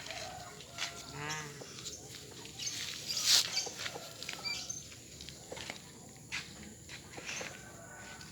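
A short, wavering animal cry about a second in, followed a little after three seconds by a brief loud hissy burst, with scattered faint clicks and knocks.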